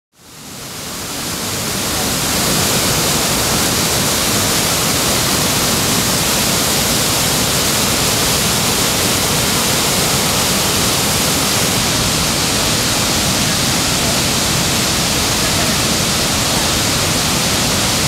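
Waterfall in flood, its swollen white water pouring over rocks in a loud, steady rush that fades in over the first couple of seconds.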